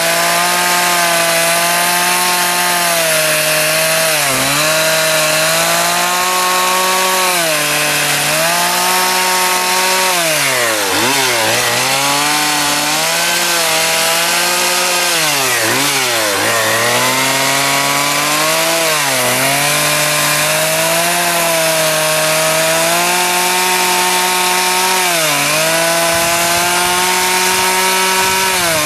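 Stihl two-stroke chainsaw running near full throttle while carving grooves into a wooden plank. Its engine note sags and recovers several times as the bar bites into the wood, dropping deepest twice near the middle.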